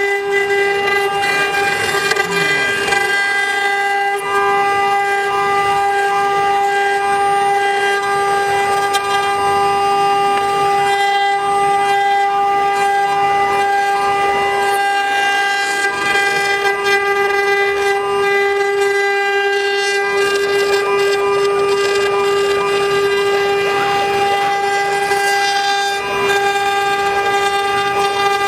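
A 9018 CNC router's spindle running with a steady whine while its engraving bit cuts into wood, carving a relief.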